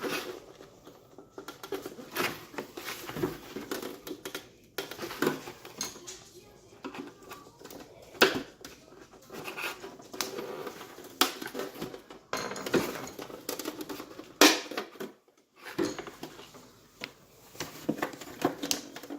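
Irregular clicks, taps and scraping of hard plastic being worked with a tool, a few sharper snaps among them: a heat-softened headlight lens being pried at to separate it from its housing, not yet coming apart.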